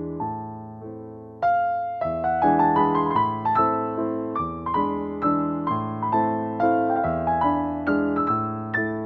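Background music: a piano playing a gentle melody over chords, with notes struck in a steady rhythm. It grows fuller and louder about a second and a half in.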